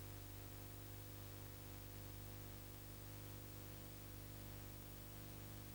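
Steady low hum with an even hiss and no other sound: the empty soundtrack of a silent film transfer.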